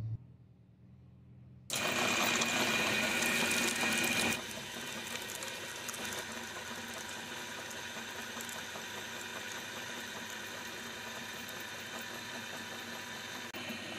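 Electric meat grinder motor starting up about a second and a half in and running steadily while its auger forces jelly candies through the perforated cutting plate. It is loudest, with a high whine, for the first couple of seconds, then runs on at a lower, even level.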